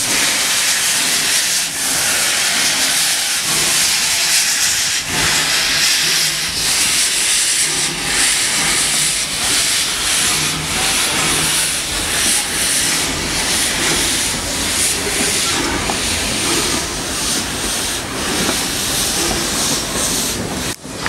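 Narrow-gauge Victorian Railways NA-class 2-6-2T steam tank locomotive 12A moving off slowly. Loud steam hisses from its open cylinder drain cocks, with chuffs from its exhaust at an uneven beat.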